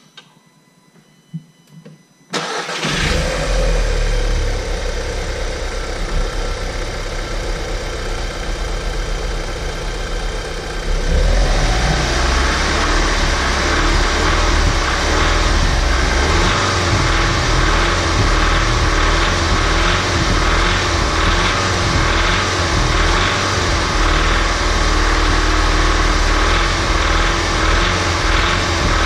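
Audi S3's 2.0 TFSI (CDLA) turbocharged four-cylinder petrol engine starting about two seconds in, then running steadily at idle. About eleven seconds in it gets louder and stays at that level.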